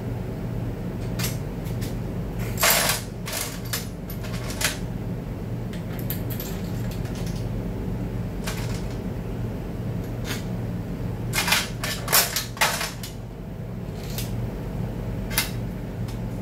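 Small metal transmission parts and hand tools clinking and clattering as they are handled, in scattered clusters, the loudest about three seconds in and again around twelve seconds. A steady low hum runs underneath.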